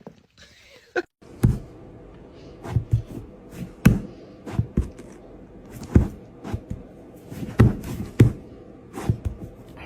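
Irregular soft thumps and knocks, about a dozen over several seconds, each short and sharp, over a faint steady background.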